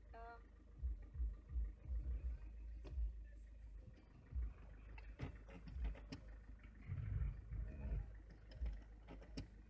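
Car engine idling, heard from inside the cabin while the automatic car is held on the brake, with irregular low thumps and a few sharp clicks.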